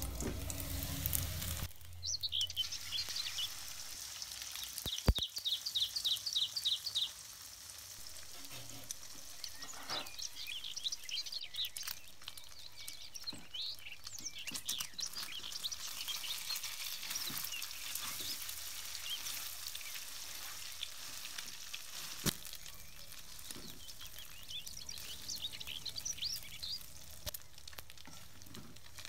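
Egg and steamed tapioca-starch balls frying in oil in a metal wok, a steady sizzle, with the scrape and occasional sharp knock of a slotted metal spatula stirring them.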